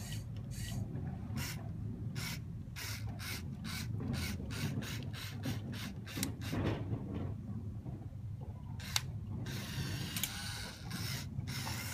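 Plastic gear train of a motorized Lego Technic 42042 crawler crane clicking and ratcheting as the superstructure swings the boom round. The sharp clicks come about three a second and bunch closer in the middle, and a denser rattle follows near the end.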